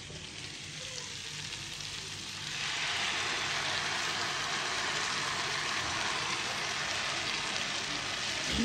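Spiced potato cubes sizzling in hot oil in a non-stick frying pan as ground spinach purée is poured onto them from a blender jug. The sizzle is a steady hiss that grows louder about two and a half seconds in and then holds.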